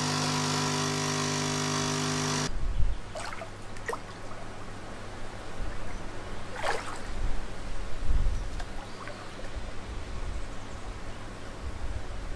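Capsule coffee machine's pump buzzing steadily as it forces coffee into a cup, cutting off suddenly about two and a half seconds in. After that, a quieter steady low rumble with a few faint short clicks.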